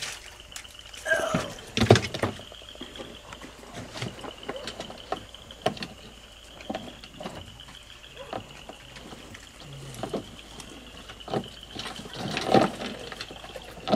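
Scattered irregular knocks and clicks of people handling gear and moving about, over a steady high-pitched whine.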